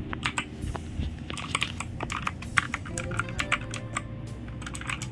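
Typing on a Rexus Heroic Series RX-KX3 75% mechanical keyboard: rapid, uneven key clicks. The switches are clickier-sounding than red switches.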